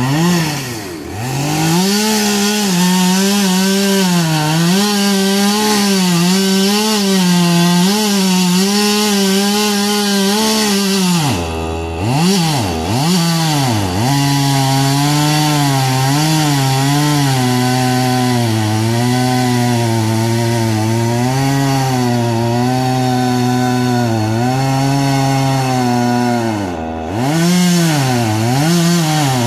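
Husqvarna two-stroke chainsaw cutting into the base of a standing tree trunk at full throttle, its pitch wavering as it loads in the cut. It drops off throttle and revs back up about twelve seconds in and again near the end. In between it runs at a lower, steadier pitch, held down by a heavier load in the wood.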